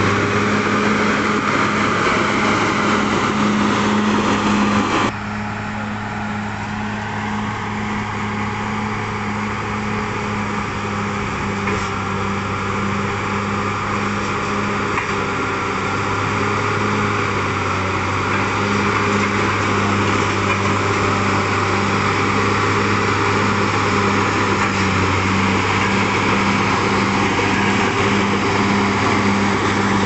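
Caterpillar D6R XL bulldozer's diesel engine running steadily under load as the dozer pushes earth with its blade. About five seconds in the sound becomes a little quieter and duller.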